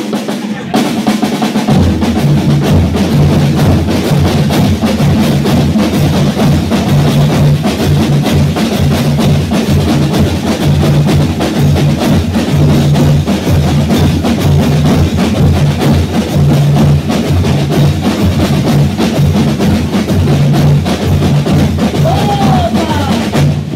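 Folia band playing a chula: snare drums, bass drums and cymbals beat a fast, steady rhythm, with accordion notes held under the drumming from about two seconds in.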